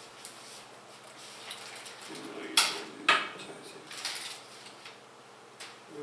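Computer hardware being handled during a PC build: light clicks and rattles, with two sharp clinks about half a second apart a little past the middle.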